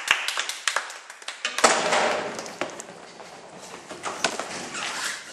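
Hand clapping for about a second and a half. Then a sudden loud burst of noise that dies away slowly, followed by scattered knocks and shuffling noise.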